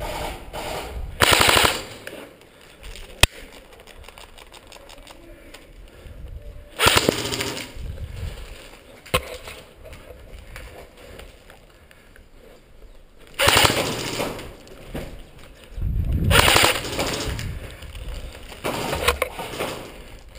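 Airsoft guns firing short full-auto bursts of rapid clattering shots, about five bursts in all, with a couple of sharp single cracks between them.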